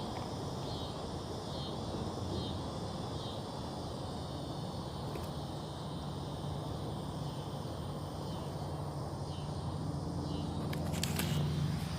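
Outdoor ambience: faint, repeating insect chirps over a low, steady hum that grows slightly louder near the end, with a few sharp clicks shortly before the end.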